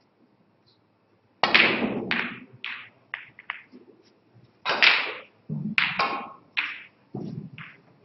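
Snooker shot: the cue tip strikes the cue ball, then a run of sharp clacks as the balls hit each other and the cushions. About a dozen knocks over six seconds, the loudest about a second and a half in and again near five seconds.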